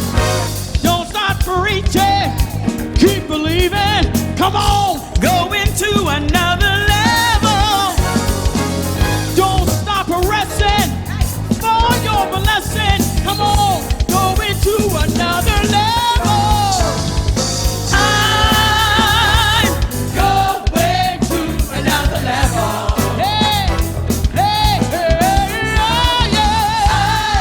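A church praise team sings a worship song with a live band of drums and guitar, the voices sometimes holding long, wavering notes.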